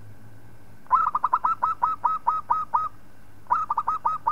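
Zebra dove (perkutut) cooing: a fast run of short staccato notes lasting about two seconds, starting about a second in, then a shorter run near the end.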